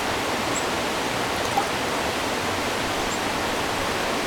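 Steady rushing of a nearby river, picked up on the microphone as an even wash of noise, with one faint tap about a second and a half in.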